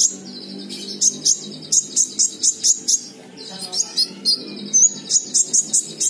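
A male kolibri ninja (konin) sunbird calling in its cage: a fast series of sharp, high chirps, several a second, broken by short buzzy trills.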